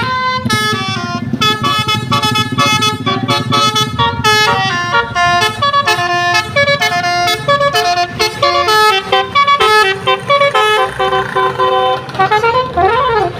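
Telolet multi-tone musical horn on a kereta kelinci tourist road train, playing a quick melody of horn notes over the low rumble of its engine. Near the end it gives a short siren-like up-and-down wail.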